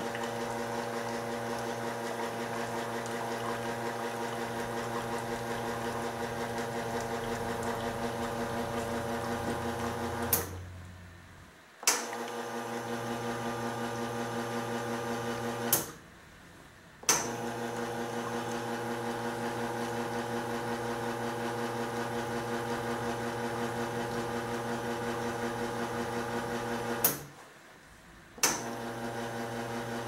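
Brasilia Portofino single-group espresso machine running its pump with a steady hum while it pushes water through the group head. The pump cuts out three times for a second or so, with a sharp click as it stops and again as it restarts.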